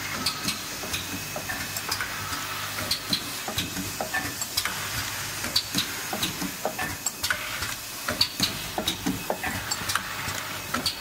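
Automatic oil seal spring loading machine running: a dense, irregular clatter of small metallic clicks and ticks over a faint low steady hum.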